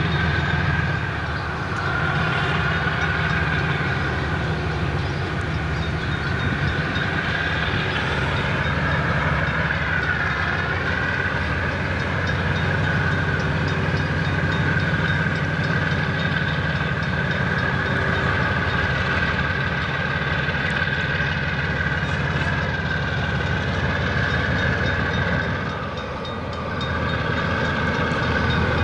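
Diesel locomotives of a long train working as the train pulls away, a steady engine drone with a high whine held above it. The sound dips briefly about a second in and again near the end.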